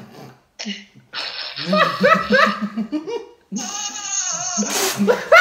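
Young men laughing hard in repeated bursts, with quick runs of ha-ha pulses about two seconds in and again near the end.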